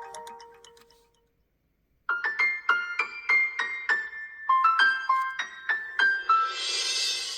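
Smartphone ringtones from the OnePlus 11's built-in set. The previous tone fades out, followed by about a second of silence. A new tone then starts: a melody of single electric-piano notes, about three a second, with a soft hiss swelling in near the end.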